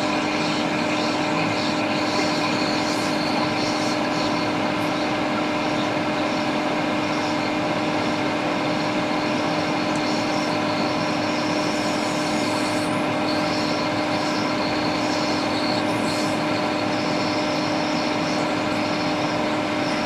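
Steady blowing of a hot-air rework station and a fume-extractor fan, with a constant hum, as the burnt U7100 chip on a MacBook Air logic board is heated to melt its solder.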